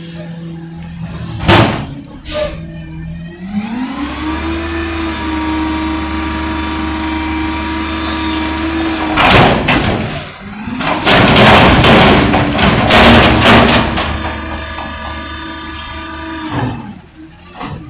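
Front-loader garbage truck's diesel engine idling, then speeding up to hold a steady high idle while the hydraulics work, dropping back, and speeding up again before settling back to idle near the end. A sharp bang comes about a second and a half in, and loud bangs and clattering come in the middle.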